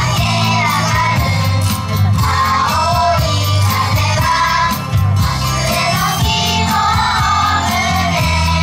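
Yosakoi dance music played loud: a sung melody over a steady beat and heavy bass.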